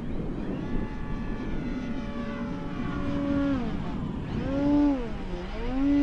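Electric motor and propeller of an FMS 2000mm DHC-2 Beaver RC model plane in flight, a steady whine whose pitch dips and comes back up twice in the second half, with low wind rumble on the microphone underneath.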